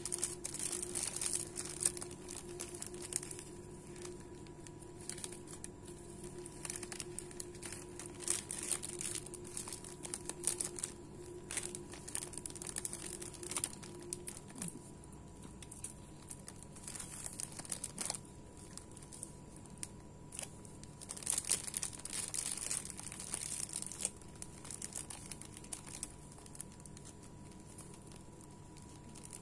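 Clear plastic bags crinkling and rustling in the hands as sandwiches are bagged and the bag necks twisted and tied with curling ribbon, in irregular crackles.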